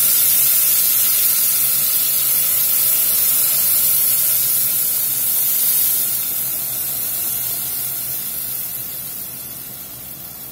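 Blended habanero-mango purée sizzling hard as it is poured into hot olive oil in a stainless steel stockpot, a loud even hiss that fades steadily over the second half as the sauce settles into the oil.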